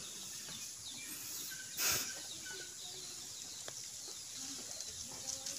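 Quiet outdoor ambience with faint, short bird chirps, and a brief burst of noise just before two seconds in.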